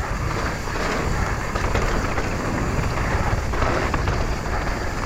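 Mountain bike descending a dirt singletrack at speed: wind rushing over the action camera's microphone, mixed with the tyres rolling on dirt and the bike rattling over bumps.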